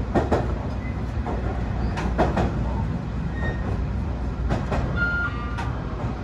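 BEC819 DENCHA battery-electric train running on the rails: a steady low rumble with paired clacks of the wheels over rail joints about every two seconds. A short electronic beep sounds about five seconds in.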